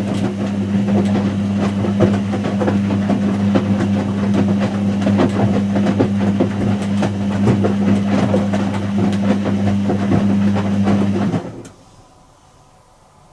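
Whirlpool AWG023 H-axis top-loader washing machine running its drum motor during a wash: a steady low hum with busy rattling and clicking. It stops abruptly about 11 seconds in, the usual pause of a wash cycle's tumble.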